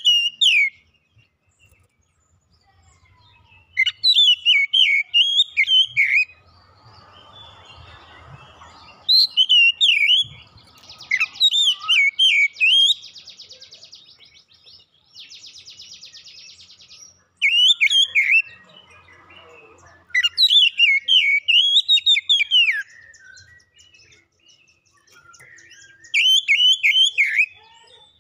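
Oriental magpie-robin singing in loud bursts of fast, varied whistled phrases a few seconds long, separated by short pauses. About halfway through, two stretches of a rapid buzzing rattle.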